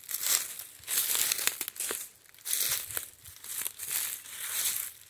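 Footsteps crunching through dry fallen leaves at a walking pace, a crackly step about every half second to second.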